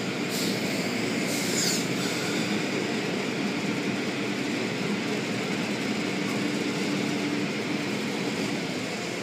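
Automatic tunnel car wash running, heard from inside a car: a steady machinery noise with water spray and cloth brush strips swishing over the car. A few brighter swishes come in the first two seconds.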